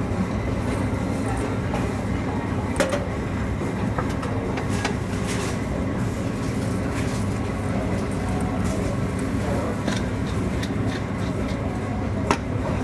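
Steady low rumble of a busy food stall, with a few sharp clicks and knocks of utensils and metal trays.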